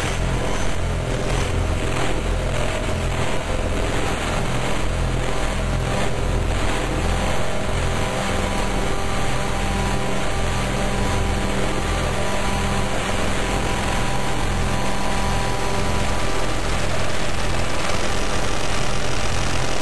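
Harsh noise / power-electronics music from a SunVox modular synth patch built around feedback modules: a loud, dense wall of hissing noise over a low drone that stutters and chops irregularly, with a few faint steady tones in the middle.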